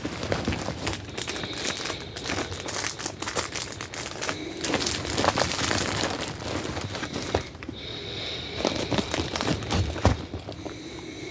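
Crinkling and rustling of gear and packaging being handled and packed into a backpack, with many small clicks and knocks.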